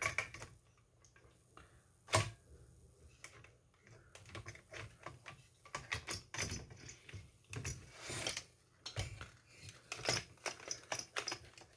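Hard plastic model-kit parts clicking and knocking against each other as a dashboard unit is worked into a plastic chassis and the chassis is handled. Irregular clicks and taps: one sharp knock about two seconds in, and a busier run of clicks in the second half.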